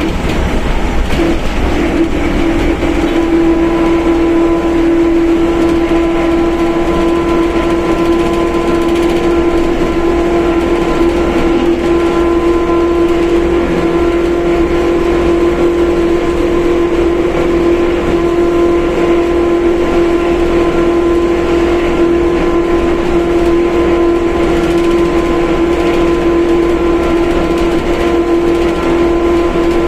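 Mercedes-Benz OF1721 BlueTec 5 bus running at a steady speed, its differential giving a loud, steady howl over the engine and a low road rumble.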